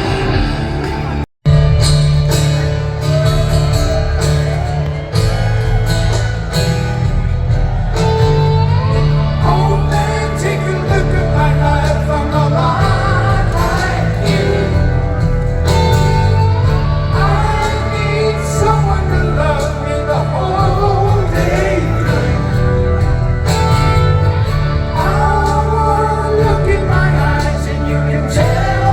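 Live band music with guitar, a heavy bass line and a singer, played over a concert sound system. The music cuts out for an instant about a second in, then carries on.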